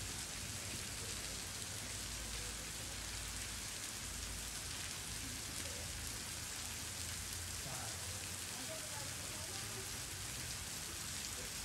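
Steady rushing hiss of the Virgin River flowing over rocks.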